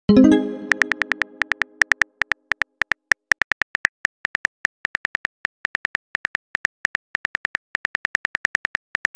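Simulated phone-keyboard clicks, rapid and even, as a text message is typed letter by letter. At the start a pitched message-sent chime rings out and fades over about two seconds.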